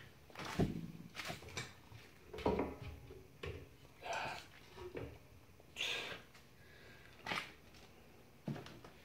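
Pair of rubber V-belts being pushed by hand onto the air compressor's motor and pump pulleys: scattered soft knocks and rubbing.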